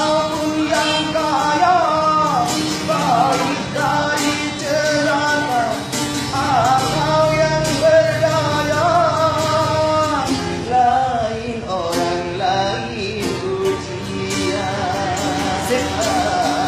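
Street busker singing a slow, melodious song to guitar accompaniment.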